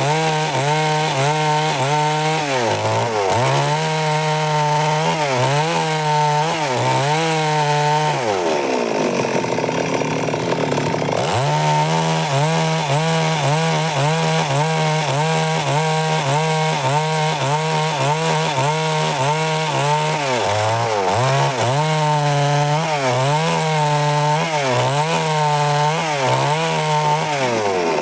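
Stihl MS 382 two-stroke chainsaw running at high revs while cutting wood, its pitch dipping about once a second under load. About eight seconds in the revs fall away, pick back up a few seconds later, and fall again near the end.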